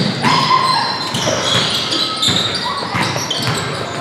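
Basketball game sounds on a hardwood gym floor: the ball thudding as it is dribbled, sneakers squeaking in short high chirps, and players' short shouts.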